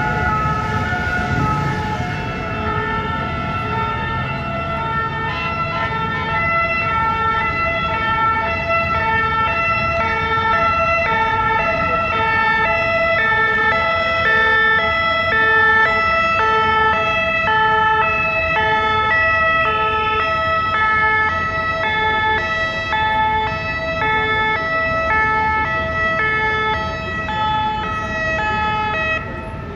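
Two-tone French emergency vehicle sirens sounding, more than one at once, their alternating high and low notes overlapping out of step over low traffic noise.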